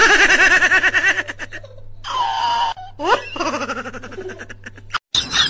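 A woman's high-pitched laughter: two long runs of rapid ha-ha-ha pulses with a held squeal between them. It breaks off abruptly near the end.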